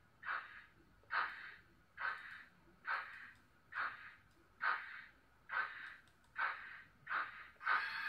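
Simulated steam-locomotive exhaust chuffs from an ESU LokSound V4.0 sound decoder in a Märklin H0 BR 81 model locomotive as it pulls away slowly. The beats are short, evenly spaced puffs about one a second, coming slightly faster near the end.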